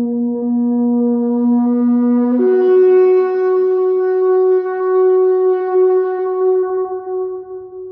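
Ram's horn shofar blown in one long blast: a low note that jumps up to a higher note about two and a half seconds in, which is held and fades out near the end.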